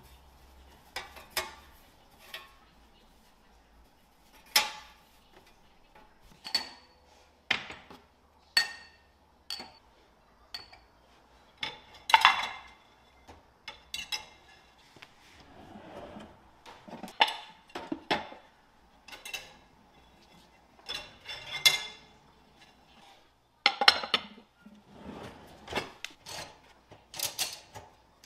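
Kitchen dishes and utensils being handled, a string of irregular clinks and knocks every second or two, some ringing briefly.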